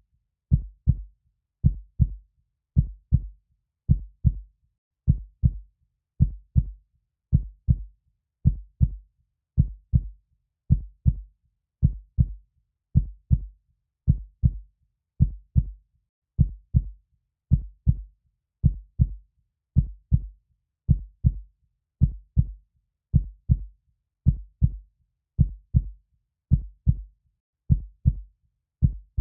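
Heartbeat sound: a steady lub-dub of paired low thumps, about one beat a second, with silence between beats.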